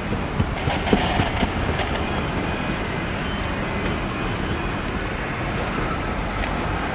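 Steady engine noise of a Cessna 680 Citation Sovereign business jet's twin turbofans as it lands and touches down on the runway.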